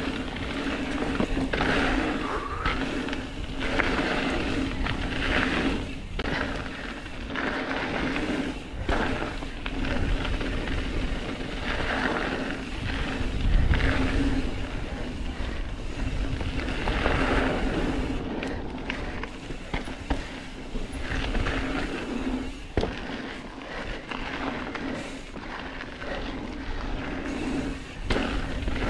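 Mountain bike rolling fast down a dirt singletrack: knobby tyres on dirt and rock, with a steady low hum, occasional sharp rattles and knocks from the bike, and wind buffeting the microphone.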